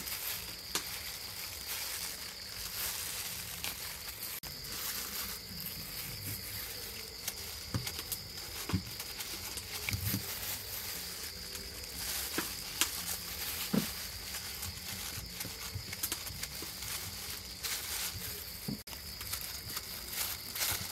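Kitchen knife cutting through red dragon fruit, with scattered soft cuts and light knocks of the blade and fruit, over a steady high chirring of insects.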